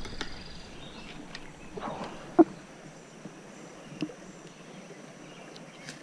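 Quiet creek-side background with light water sounds, broken by a sharp click about two and a half seconds in and a fainter one at about four seconds.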